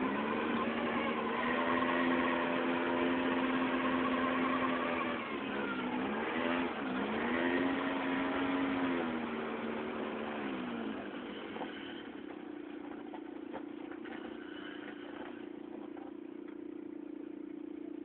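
A small ATV engine running under steady throttle while being ridden, its pitch dipping and picking up again a few times about five to seven seconds in. It fades at about eleven seconds, and a quieter steady engine note carries on from about twelve seconds, as when the quad slows and idles.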